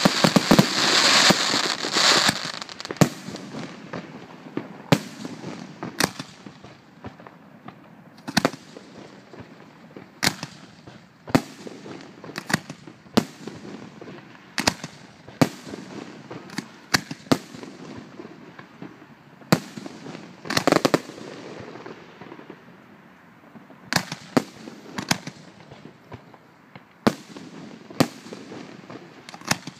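Aerial firework shells bursting: a dense crackling barrage for the first two seconds, then single sharp bangs every second or two, with a brief run of louder bangs about two-thirds of the way through.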